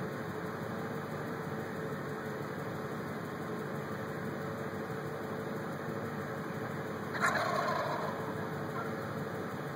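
Wild turkeys gobbling in one short burst, about a second long, about seven seconds in, over a steady background hiss.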